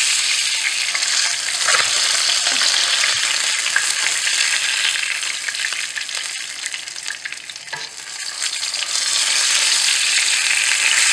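Hot mustard oil sizzling in a nonstick frying pan as fried koi fish are lifted out with a wooden spatula, with a few light taps and scrapes of the spatula. The sizzle dies down briefly about two-thirds of the way through, then picks up again.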